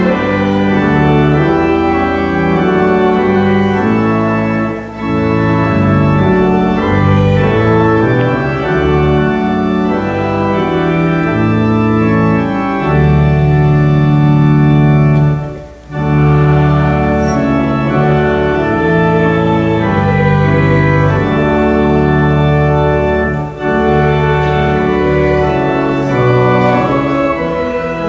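Church organ playing slow music in full held chords over a deep bass line, pausing briefly between phrases.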